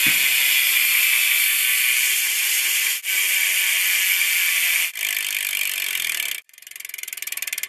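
Rear hub of a BMX bike (Profile Mini) freewheeling: the pawls and ratchet buzz fast and loud as the back wheel spins, with two brief breaks. The buzz stops abruptly about six and a half seconds in, and then it goes on as separate rapid clicks, about ten a second.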